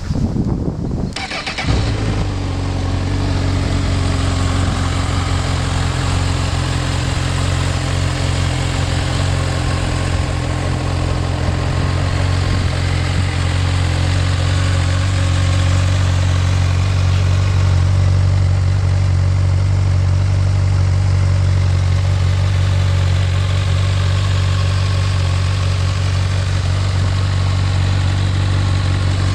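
2011 Honda CB1000R's inline-four engine with stock exhaust cranking on the starter and catching about two seconds in, then idling steadily.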